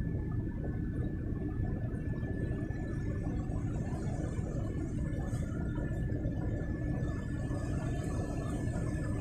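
Steady low rumble of a car heard from inside its cabin as it creeps along in slow traffic, with a faint steady high whine.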